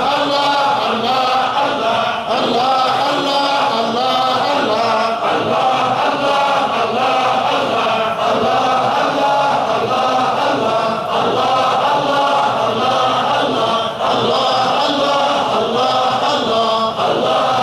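A large group of men chanting Tijani Sufi dhikr in unison, one short phrase in remembrance of God repeated over and over.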